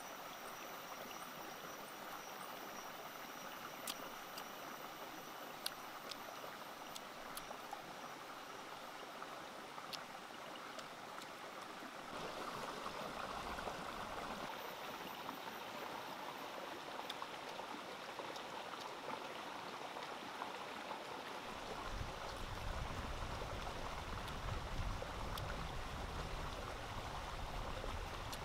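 Stream water rushing steadily over rocks, with a few sharp clicks in the first part. A low rumble joins it about three quarters of the way through.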